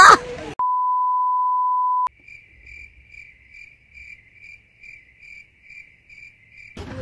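A steady electronic censor-style bleep lasting about a second and a half, then a faint cricket-chirping sound effect: a thin pulsed chirp repeating two to three times a second, played as an edited silence gag.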